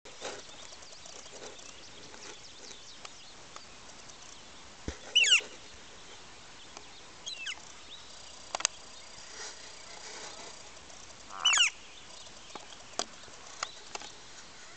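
Adult northern flickers calling to coax their nestlings out of the nest box: two loud, sharp calls that sweep downward, about six seconds apart, with softer calls and a few sharp ticks between.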